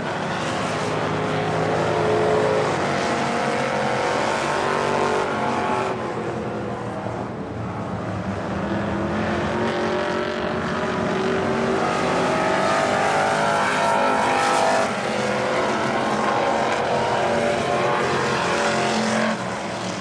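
Dirt-track stock car engine running hard as the car laps the oval, its pitch rising and falling with throttle down the straights and through the corners.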